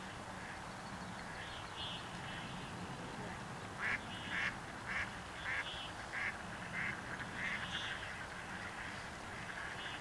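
A duck quacking: a series of about eight short quacks roughly half a second apart, the first ones loudest and the rest fading, with a few fainter calls shortly before.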